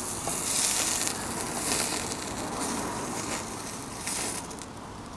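Steak sizzling on the grate of a small steel firebox stove, its fat dripping into the flames and hissing, with crackling from the fire. The sizzle is strongest early and dies down toward the end.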